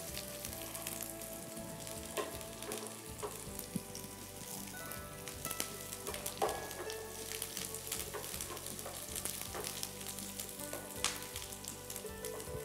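Chopped onion, garlic, dried chilli, curry leaves and green chilli sizzling steadily in hot oil in a non-stick frying pan: the tempering stage of the dish. A wooden spoon stirring them makes scattered scraping clicks against the pan.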